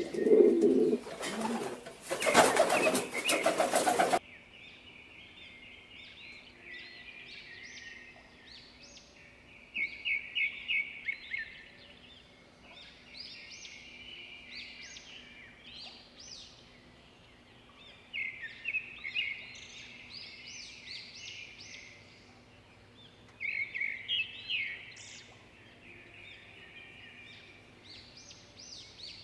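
Feral pigeons cooing, with a flurry of wing flapping, for the first four seconds; the sound then changes abruptly to bird chirping and twittering, high-pitched and coming in clusters every few seconds over a faint steady hum.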